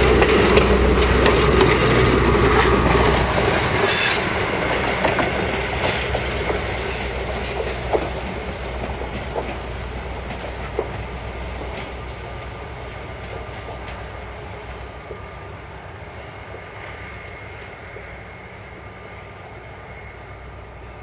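Passenger train rolling past close by, its coach wheels clicking over the rail joints, then fading steadily as the train draws away down the track.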